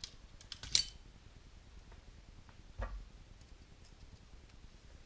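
Small metal parts and a hex driver being handled at a workbench: a sharp metallic click under a second in, a softer knock near the three-second mark, and a few faint ticks.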